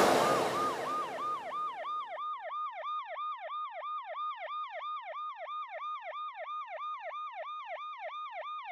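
Emergency-vehicle siren in a fast yelp: its pitch dips and rises about four times a second, steady throughout. Under it, the tail of a loud bang from just before fades away over the first couple of seconds.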